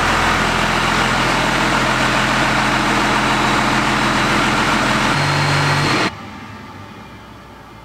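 12-valve Cummins diesel engine idling steadily, its note shifting slightly about five seconds in before the sound cuts off abruptly about six seconds in, leaving only a faint low rumble.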